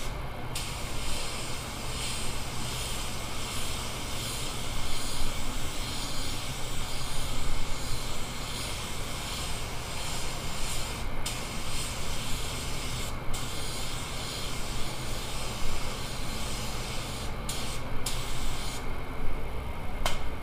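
Automotive paint spray gun hissing as it sprays the bumper, its trigger let off briefly a few times, over a steady low rumble.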